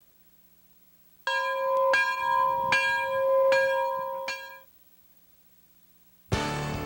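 A bell struck five times at an even pace, the same note each time, each strike ringing on into the next before dying away. Near the end music starts abruptly.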